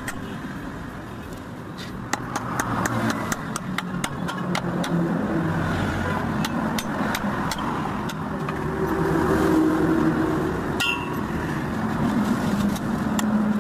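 Hammer blows on a steel drift knocking at the universal joint of a truck drive shaft, metal on metal, in an irregular run of sharp taps. Under them runs a steady engine hum.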